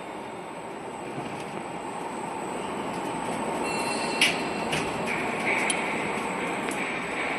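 Roll forming machine for profiled steel sheeting running steadily, with a few sharp metallic clanks.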